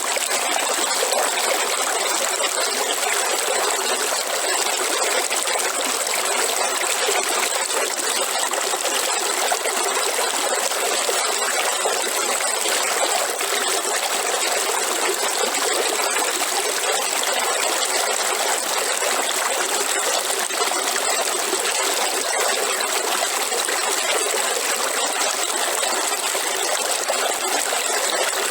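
River water flowing: a steady, even rush with little low rumble and a bright hiss on top.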